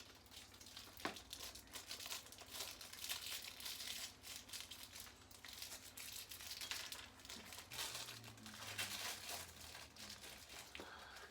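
Plastic toy packaging of an LOL Surprise ball being crinkled and torn open by hand, a continuous irregular crackling.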